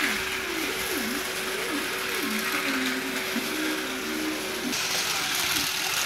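Battery-powered Twister Tracks toy race car running along its plastic track, its small electric motor whirring steadily with a wavering pitch. The sound shifts about three-quarters of the way through.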